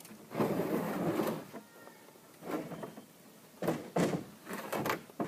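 A bee package box being shaken and knocked over an open hive to pour the bees out: a long scraping shake near the start, a shorter one midway, then several short sharp knocks near the end.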